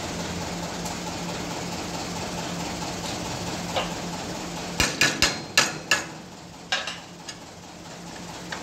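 Hammer blows on a steel plate clamped in a bench vise: a quick run of about five sharp metallic strikes about halfway through, then a couple of lighter taps.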